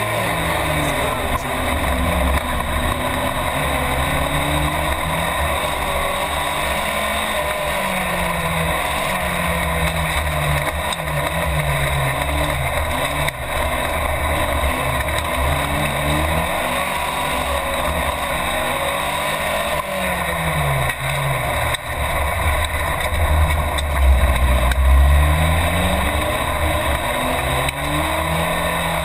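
In-cabin sound of an Alpine race car's engine revving hard, its pitch climbing and dropping again and again through gear changes and lifts, over a heavy rumble and rattle inside the car. It is loudest about two-thirds of the way through.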